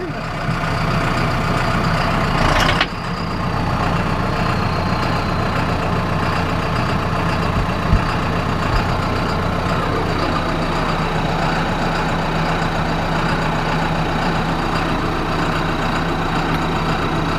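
John Deere tractor's diesel engine running steadily, with a short knock about eight seconds in.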